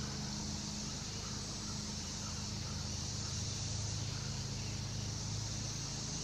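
Steady, high-pitched insect chorus, cricket-like, running without a break, over a low steady hum.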